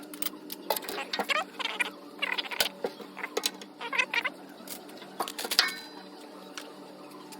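Metal wrenches clinking and clattering as they are picked up and set down, with irregular knocks and one clink a little past five seconds in that rings briefly. Short squeaky chirps are mixed in.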